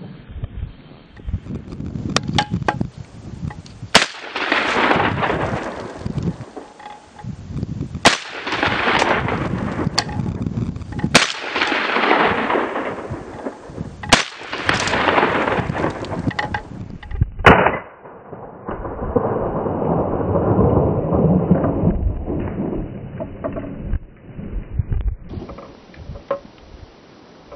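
Gunshots at targets: about six sharp reports a few seconds apart, each followed by a long rumbling echo. Near the end there are a few seconds of rushing noise with no shot.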